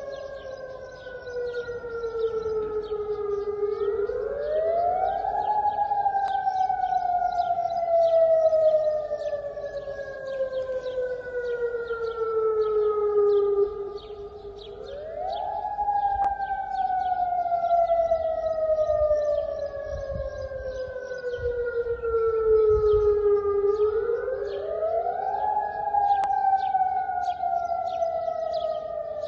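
Civil-defence warning sirens wailing across a city. Each cycle climbs in pitch over a couple of seconds, then falls slowly for about eight seconds, and the cycle repeats three times. More than one siren sounds slightly out of step.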